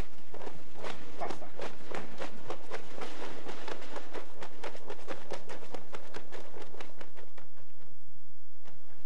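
A rapid, fairly even series of light taps, about three or four a second, which thins out near the end.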